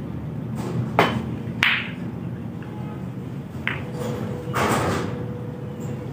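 Snooker shot: the cue tip strikes the cue ball about a second in, and a sharp ball-on-ball clack with a short ring follows a moment later. A smaller click and a brief burst of noise come later, over a low murmur of voices.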